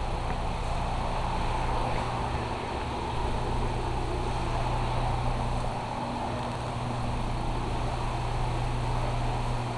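A steady mechanical hum with a constant low tone and an even rushing noise, unchanging throughout.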